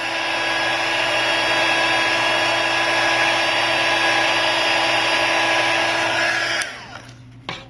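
Electric heat gun blowing steadily as it heats the phone's frame to loosen it. It cuts off suddenly near the end, followed by a few small clicks.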